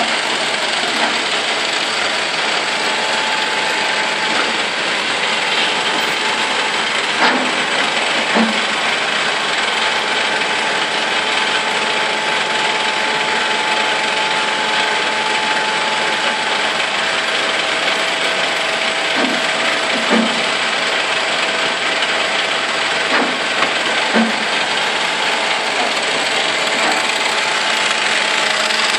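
Sliding-headstock CNC lathe running, a steady machine noise with a few constant tones, broken three times by a pair of short knocks about a second apart.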